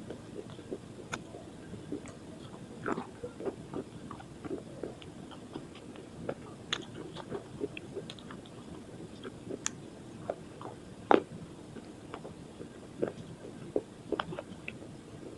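Slate pencil sticks coated in dried multani mitti (fuller's earth) being bitten and chewed: irregular sharp crunches and small clicks, with one louder crunch about eleven seconds in.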